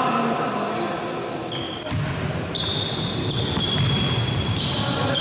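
Basketball game sounds on a wooden sports-hall court: sneakers squeak in many short, high-pitched chirps, thickening from about two seconds in. Under them are the low thuds of the ball being dribbled and players' footsteps.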